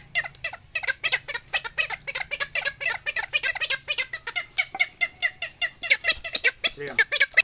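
Rapid, high-pitched animal calls repeated several times a second.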